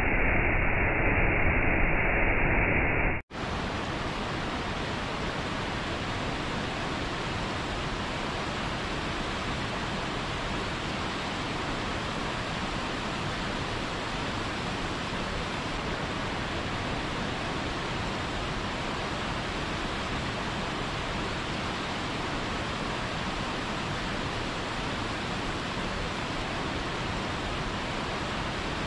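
Waterfall water rushing and splashing onto rock, a steady noise. Just over three seconds in, a muffled, louder recording cuts off abruptly and gives way to a quieter, hissier, even rush of falling water.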